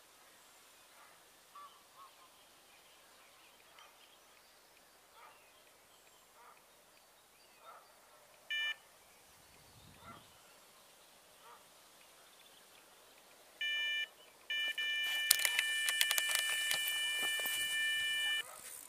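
Electronic carp bite alarm sounding: a single bleep about a third of the way in, another about three quarters in, then a continuous tone for about four seconds: a run, a carp taking line after picking up the bait. Rapid clicking from the reel runs under the continuous tone as line pulls off.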